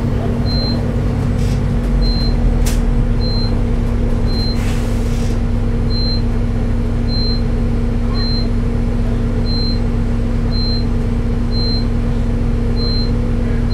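Steady engine and drivetrain drone of a New Routemaster bus heard from inside the lower deck, growing a little heavier about two seconds in. A short high beep repeats about once a second throughout. There is a sharp click near three seconds and a brief hiss just before five seconds.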